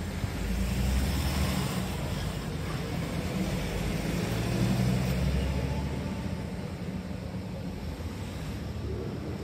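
Motor vehicle engine running in the street with a low rumble, swelling about a second in and again around five seconds.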